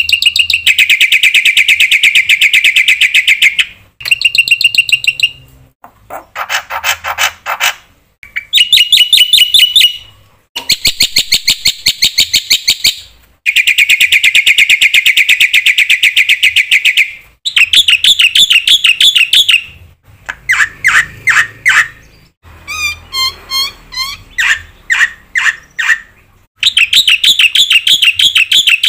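Black-winged myna (jalak putih) singing loudly in a string of varied phrases: long rapid trills, rattles and runs of sharp chirps, each phrase broken off by a short pause.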